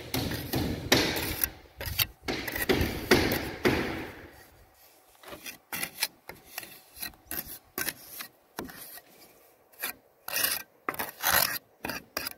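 Steel mason's trowel scraping and smoothing mortar against ceramic ridge and roof tiles. There is a close run of rasping strokes for about the first four seconds, then shorter separate scrapes and light knocks.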